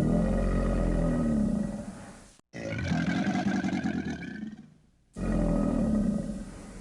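Crocodile roaring: a deep, rumbling roar, then an abrupt cut, a second roar with a harsher, higher edge, and another sharp cut as the first roar starts again.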